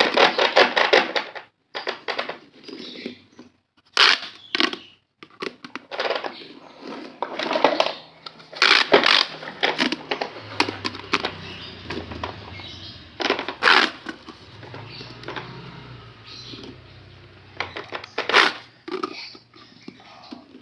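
Plastic pop tube fidget toys being stretched and squeezed: a dense run of quick clicks and crackles, with sharper snaps scattered through.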